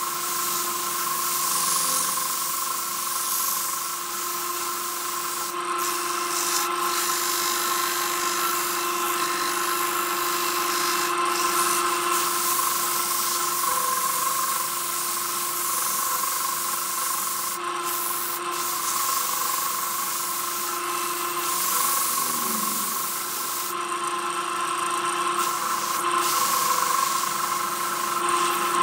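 Sandpaper held by hand against a wooden hollow form spinning on a lathe, giving a steady rubbing hiss over the lathe's steady hum. The hiss dips briefly now and then as the paper is shifted on the wood.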